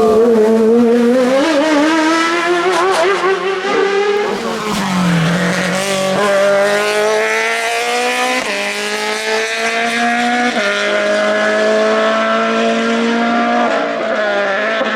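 Competition car engine at hard acceleration during a hill-climb run, the revs wavering and falling about five seconds in, then climbing through the gears with upshifts at about six, eight and a half and ten and a half seconds in.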